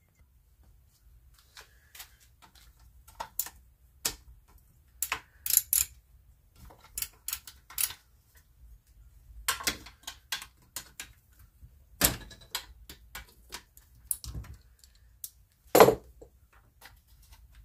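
Hand tools clicking and clinking on a small lawnmower engine as its cylinder head bolts are loosened and taken out with a wrench and socket: irregular metallic clicks, with a few sharper knocks, the loudest near the end.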